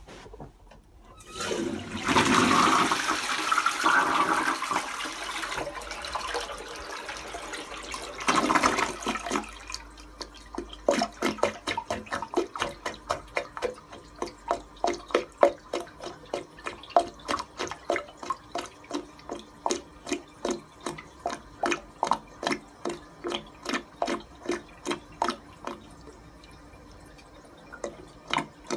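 A toilet is flushed, with the water rushing for several seconds, then the bowl keeps gurgling in short glugs, about two a second. The gurgling is the sign of a blocked drain pipe that stops air venting through the line.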